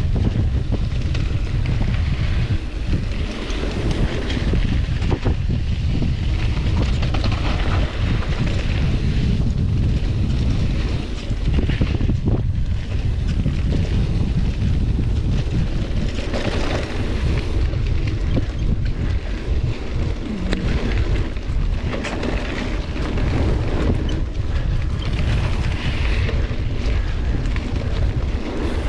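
Heavy wind buffeting on the microphone of a camera riding along on a mountain bike, a continuous low rumble with scattered knocks and rattles from the bike going over the trail.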